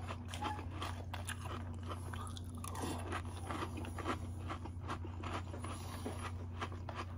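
A person chewing a mouthful of crunchy Apple Pie Toast Crunch cereal in milk, with irregular crunching throughout.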